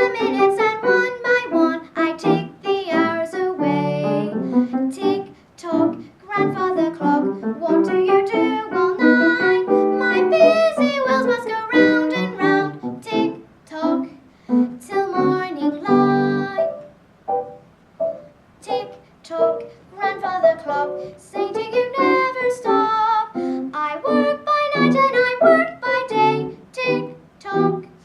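A young girl singing a song in phrases with short breaths between them.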